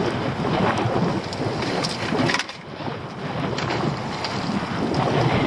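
Wind buffeting the microphone over the wash of the sea around a small open boat, with scattered knocks and rattles as a crab pot is handled.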